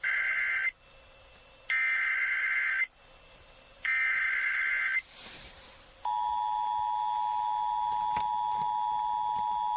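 Emergency Alert System tones over FM radio. Three bursts of the warbling digital SAME header data come about a second apart. After a short pause, the EAS two-tone attention signal starts about six seconds in and holds steady. Together they mark the start of a new tornado warning broadcast.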